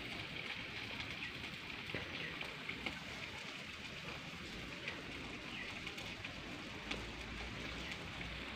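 Smouldering homemade tin-can chulha (wood stove) giving off thick smoke: a faint, even hiss with scattered small crackles and ticks.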